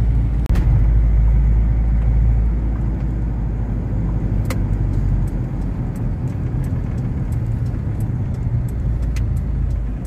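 Steady low rumble of a car's engine and road noise heard from inside the cabin while it drives, with a few faint clicks.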